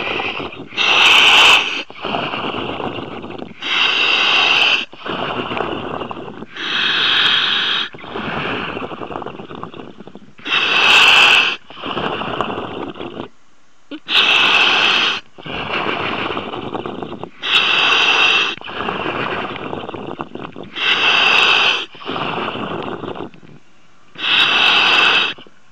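A surface-supplied diver breathing through a helmet's demand regulator, heard over the diver's comms line. About eight slow, regular breaths, one every three seconds or so, each a loud hiss followed by a longer, softer rush.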